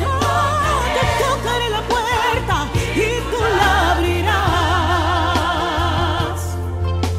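Woman singing a Spanish Christian worship song, with long, shifting melodic runs and wide vibrato over a band accompaniment with a steady, strong bass.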